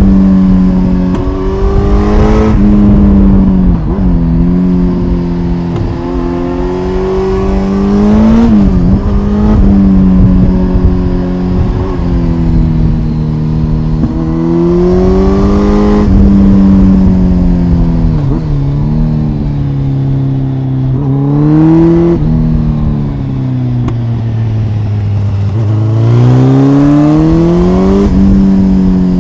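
2005 Kawasaki ZX-10R's inline-four engine under way, pulling up in pitch under throttle and dropping back several times, about five climbs in all, with short breaks at the top of the climbs as gears change or the throttle closes. Wind and road noise rush underneath.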